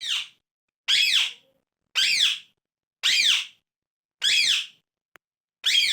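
Pet parrot screaming: six loud, harsh calls at roughly one per second, each a short arching screech with silence between. The owner asks whether the bird is angry.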